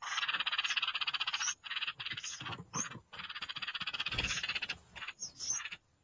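Nestling songbirds begging in the nest: two long, raspy, rapidly pulsing calls of about a second and a half each, with shorter calls between them and near the end. A dull low bump comes about four seconds in.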